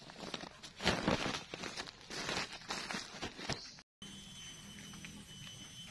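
Woven plastic fertilizer sack rustling and crinkling as it is shaken and handled, in irregular bursts. About four seconds in it cuts off abruptly, and a quieter steady hiss with thin high tones follows.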